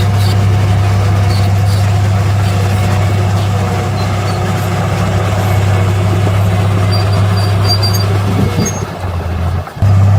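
Heavy diesel engine of earthmoving machinery running steadily with a deep, even drone, faltering briefly near the end.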